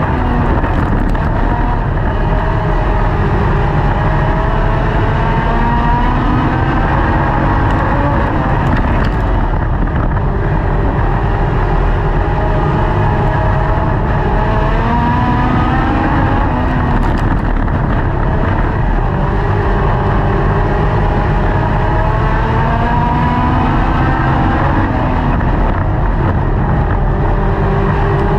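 Dirt-track race car engine at racing speed, heard from inside the car. The revs climb repeatedly over a few seconds and drop back through the corners, over a constant low rumble.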